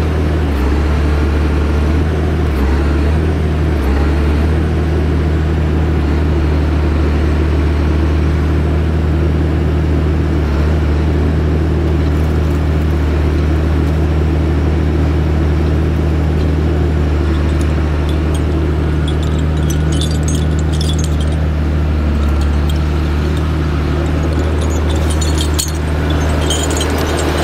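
Skogsjan forestry harvester's diesel engine running steadily with a deep hum. A crackle of higher-pitched noise comes in twice in the last ten seconds, as the machine moves off on its chained tyres.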